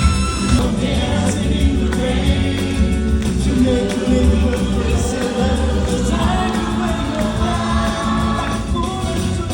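Music with voices singing, choir-like, over a pulsing bass beat.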